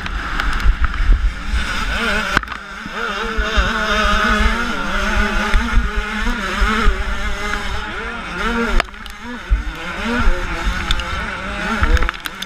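Dirt bike engine running hard, its revs rising and falling as the throttle opens and closes through the track, heard from a camera on the bike with wind rumbling on the microphone.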